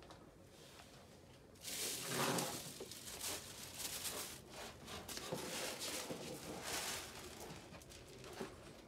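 Dry cat food rattling and rustling as it is poured out for feeding. It starts about a second and a half in, is loudest right away, then goes on in uneven spurts.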